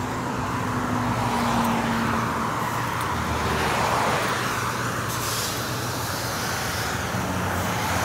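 Road traffic: a steady hum of vehicles going by, swelling about four seconds in as a car passes, then easing off.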